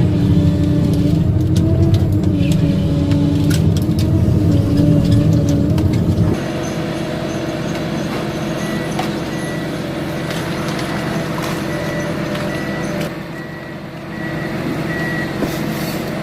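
Forestry harvester's diesel engine and hydraulics running hard under load, with scattered clicks and knocks. About six seconds in the sound changes abruptly to a lighter engine sound, and a repeated high beep from a machine alarm sounds for several seconds near the end.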